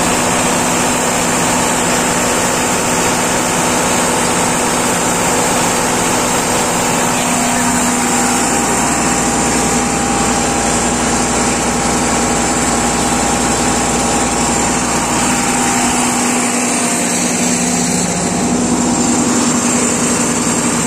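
Sonalika tractor's diesel engine running steadily at raised speed, around 1,500 rpm on its gauge, while the PTO speed is being set; its note changes slightly about three-quarters of the way through.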